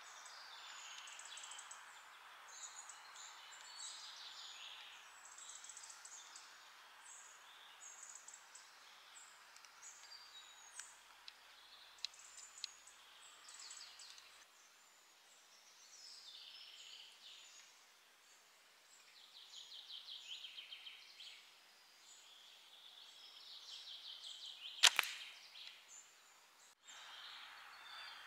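Faint woodland birdsong throughout, with one sharp snap near the end as the homemade slingshot looses its broadhead arrow.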